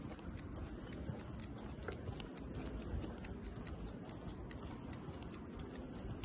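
Walking footsteps on pavement, with an American Cocker Spaniel's paws and claws pattering alongside: many small, irregular ticks over a steady low rumble.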